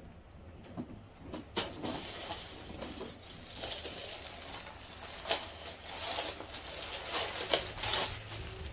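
Plastic packaging crinkling and rustling in irregular bursts with sharp crackles as clothes are handled and pulled out of their bags, starting after the first second or so.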